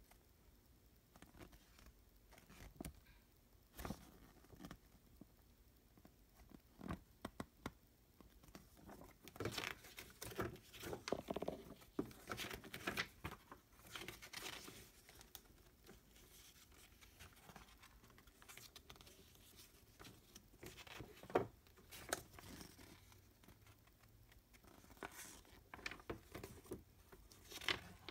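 Pages of a printed plastic-model instruction manual being handled and turned by hand: faint, intermittent paper rustling and soft taps, busiest in the middle, with one sharper tap about two-thirds of the way through.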